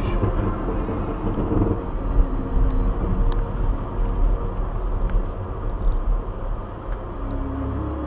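Steady rumble of a car's engine and tyres on a wet road, heard from inside the cabin.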